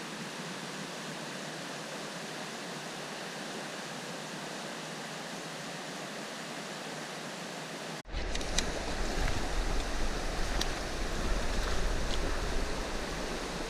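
Steady rush of river water. About eight seconds in the sound cuts off abruptly and comes back louder, with a low rumble and a few faint clicks.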